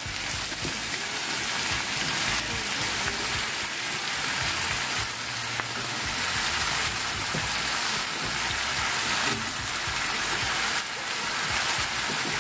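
Chicken, potato and carrot chunks frying in curry paste in a hot wok: a steady sizzling hiss with no break.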